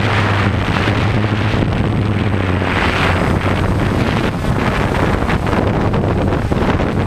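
Quadcopter's motors and propellers whirring steadily, heard from the camera on board, with wind buffeting the microphone.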